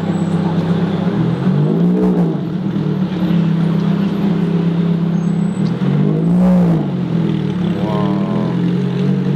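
Ferrari F430's V8 idling with a steady low drone, blipped twice: each rev rises and falls quickly, about two seconds in and again past six seconds.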